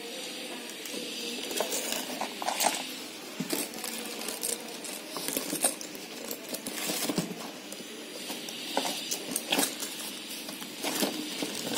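Handling noise: irregular rustles, clicks and clinks as handbags with chunky gold chain straps are moved about in a cardboard box lined with plastic.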